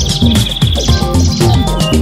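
Electronic background music with a steady beat. A bird trills briefly over it during the first second.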